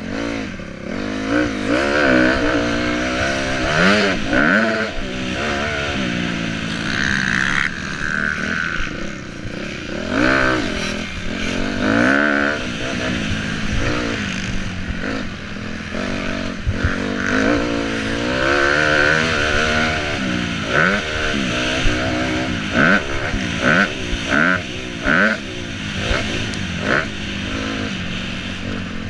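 Motocross bike engine revving hard and easing off over and over, its pitch sweeping up and falling back many times as the rider works the throttle and gears around the track.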